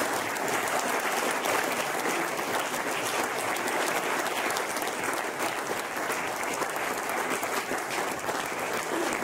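Audience applause, steady and even.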